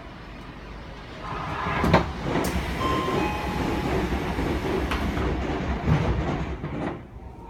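Doors of an Odakyu 2000 series commuter train car closing at a station, heard from inside the car: a stretch of noise with short tones and knocks while the doors slide, and a loud knock about six seconds in as they shut.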